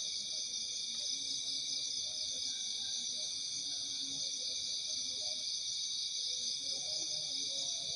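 Steady, high-pitched chorus of night insects, with faint, short, low tones coming and going underneath.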